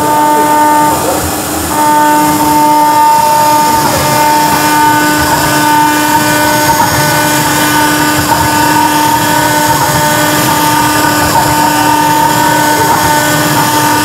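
CNC stone engraving machine's spindle running with a steady high whine while its bit carves into stone, over a rough grinding noise from the cut.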